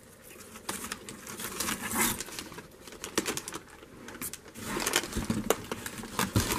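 Rustling and crackling of corrugated cardboard liner and brown paper packaging as hands dig through a produce box, in many small irregular clicks. It grows louder and busier near the end.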